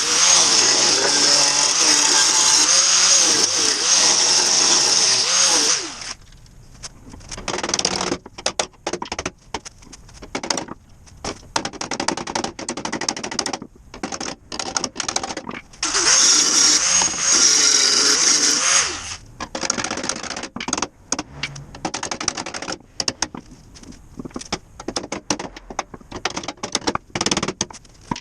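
Handheld power tool working metal in bursts: a long run over the first six seconds, then short stop-start bursts and clatter, another long run about two-thirds of the way through, and more short bursts near the end.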